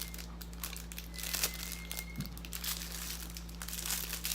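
Plastic packaging crinkling and rustling as it is handled, with irregular small crackles.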